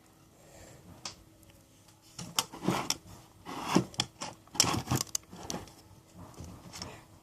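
Homemade clear-glue slime being squeezed and pulled apart by hand, a run of irregular sticky squishes and snaps starting about two seconds in; the slime is stiff and breaks rather than stretching.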